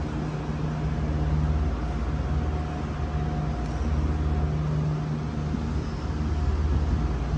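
Steady low mechanical drone of a running vehicle, with a constant hum and no sudden events.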